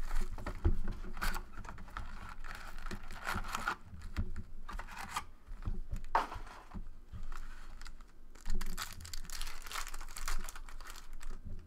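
Crinkling and tearing of plastic shrink wrap and foil wrappers as a Fleer Retro trading card box is unwrapped and its packs are handled on a tabletop. Near the end, a foil card pack is torn open.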